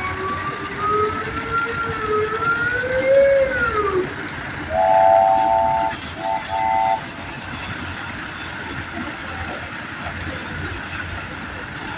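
Steam engine whistles blowing. One whistle slides slowly up in pitch, then drops and stops about four seconds in. A three-note chime whistle then sounds for about a second and gives two short toots, and after that a steady hiss carries on under the engines' low running noise.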